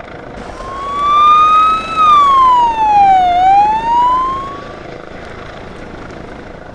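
Police siren wailing. One slow sweep rises in pitch, falls, and rises again over about four seconds, then fades out.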